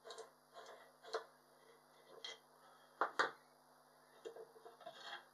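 Small metal clicks and knocks from taking apart a large side-cast fishing reel, as its metal centre nut and spindle are unscrewed and set down on the table. There are two sharper knocks close together about three seconds in.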